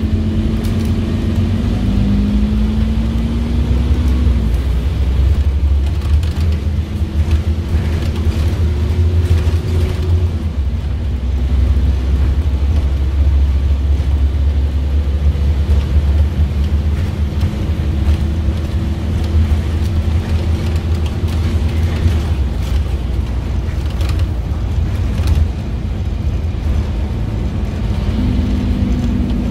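Scania N230UD double-decker bus heard from inside the saloon: its Euro 4 Scania DC9 diesel engine, driving through a ZF Ecomat 5HP500 automatic gearbox, runs with a heavy steady rumble. The engine note climbs in pitch several times as the bus accelerates through the gears.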